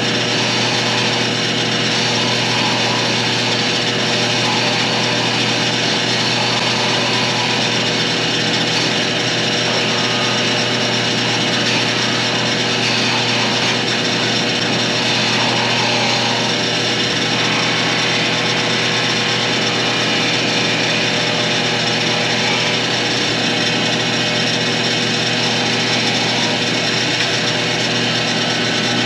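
Woodworking power tool's electric motor running steadily at constant speed, with a steady hum and a whirring noise band.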